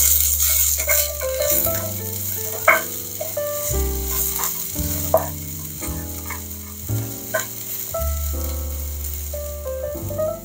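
Stir-fry sizzling steadily in a hot pan, with a few sharp clicks of a spatula against the pan, over background piano music.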